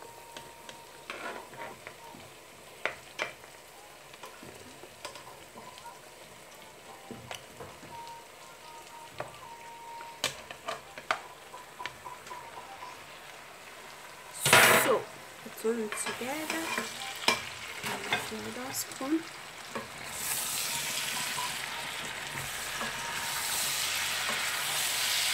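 A metal spoon clicks and scrapes as sliced tomatoes and bell peppers are spooned from a bowl into a pot of hot oil and fried onions, with one loud burst about halfway through as the vegetables go in. From about three-quarters of the way in, the vegetables sizzle steadily in the oil while they are stirred, the sizzle growing louder.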